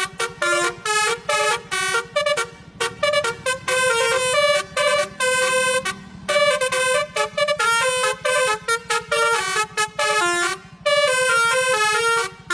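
Telolet bus horn: a multi-tone horn playing a quick tune of short notes that step up and down in pitch, with a few longer held notes and brief gaps between phrases.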